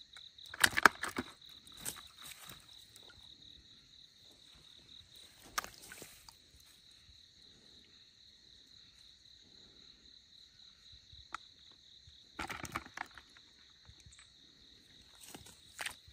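Crickets trilling steadily in a high, even pulse, broken by several brief bursts of rustling, scraping and splashing (the loudest about a second in) from eels being gripped with metal tongs and dropped into a bucket of water.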